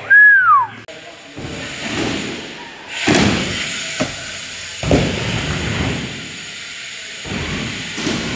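BMX bikes riding on skatepark ramps and walls: tyres rolling with a steady hiss, broken by a few thuds of wheels hitting and landing, in several short cuts. Right at the start a loud short squeal drops in pitch.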